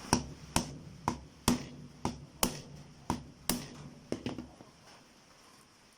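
Repeated sharp blows on a Sony camera charger's plastic case, about two a second, as it is struck to force the stubborn case open; the blows stop about four and a half seconds in.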